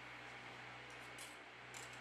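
Very quiet room tone with a faint steady hum, and a couple of faint light ticks about a second in and near the end: a thin metal bracket being lifted off a phone's circuit board.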